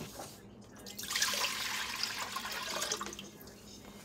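Water poured from a plastic pitcher into a large cooking pot, a steady splashing pour that starts about a second in and lasts about two seconds.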